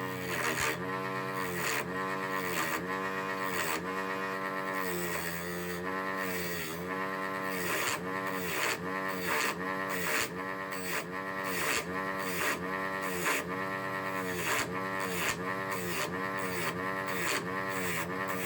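Background music with a steady beat and a repeating melodic phrase.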